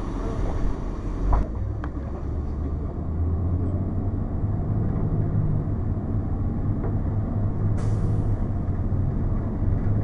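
Cummins ISC inline-six diesel of a 2002 Blue Bird CS transit bus, heard from inside the cabin as the bus moves off. Its low drone strengthens about three seconds in. A steady air hiss cuts off sharply about a second in, and a second brief air hiss comes near the end.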